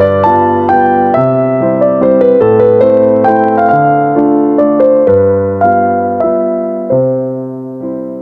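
Background piano music: a slow, gentle melody of struck notes over held lower notes, the last phrase dying away near the end.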